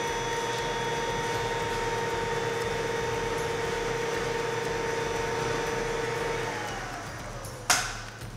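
Blower motor of a window pressure-test rig running with a steady whine, then switched off about six and a half seconds in and winding down, its pitch falling. A single sharp knock near the end.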